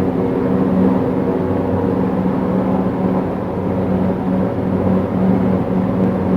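A steady, far-off droning hum, pitched low with a few fixed tones above it, like a motor glider or lawn mower that doesn't stop. Its source is unknown; the recordist suspects high-voltage power lines.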